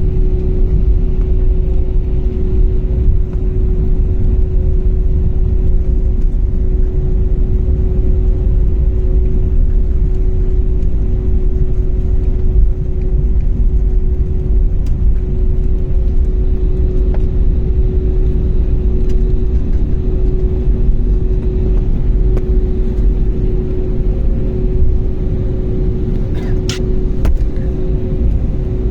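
Steady drone of an airliner's jet engines heard inside the cabin: a deep rumble with a constant hum over it. A few faint clicks come near the end.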